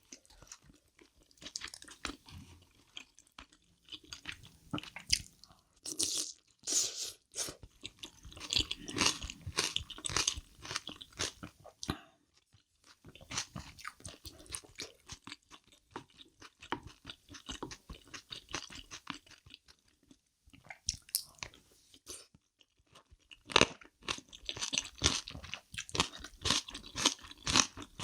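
Close-miked chewing, with crisp, crunchy bites in rapid runs, broken by two short pauses.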